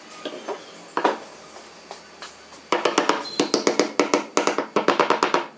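A few scattered sharp knocks, then from about three seconds in a quick run of sharp, ringing knocks, about five a second.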